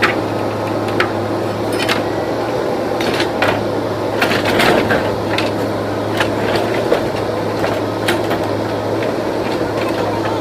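JCB 3DX backhoe loader's diesel engine running steadily under work, with irregular sharp knocks and clanks from the machine every second or so.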